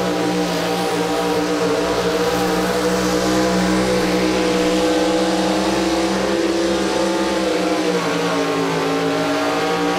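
Chevrolet pickup truck's engine held at high revs under full load as it drags a weight-transfer pulling sled, running steady with its pitch sagging a little about eight seconds in.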